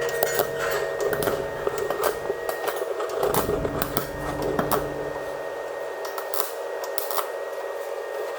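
MIG welder laying beads on sheet steel, a rapid, irregular crackling and popping with a steady hum underneath.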